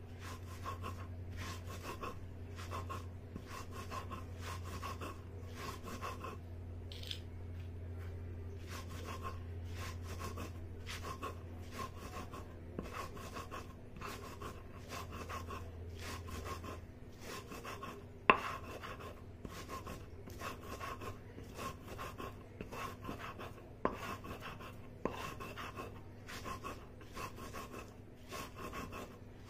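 Salt with green chilli, red chilli and cumin being ground by hand on a sil-batta, a flat stone slab rubbed with a hand-held grinding stone. It makes a gritty scrape about twice a second, with a sharp knock of stone on stone about 18 seconds in.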